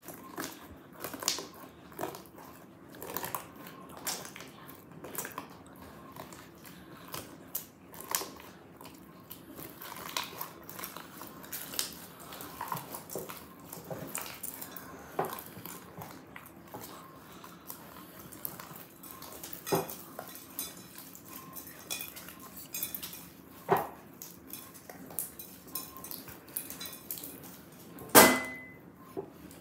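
Hands crushing and squishing slime with a crusty top in a glass dish: irregular crackling and popping with now and then a louder snap. Near the end a sharp knock with a short ring, the loudest sound, as the slime comes away from the glass dish.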